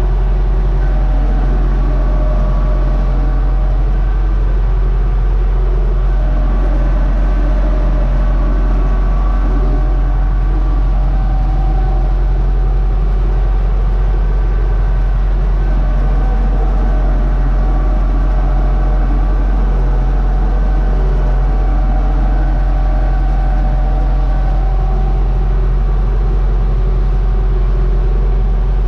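UTB Universal 650 tractor's four-cylinder diesel engine running steadily under load while pulling a three-furrow plough, heard from inside the cab as a loud, even low hum.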